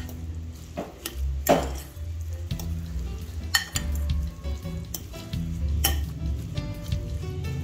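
Metal fork stirring grated raw potatoes and cornstarch in a glass bowl: a wet, scraping mix with several sharp clinks of the fork against the bowl, the loudest about a second and a half in.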